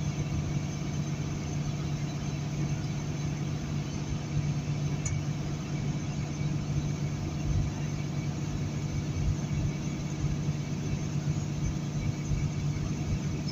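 Semi truck loaded to about 84,000 lb cruising at highway speed: its diesel engine holds a steady low drone, under an even wash of road noise.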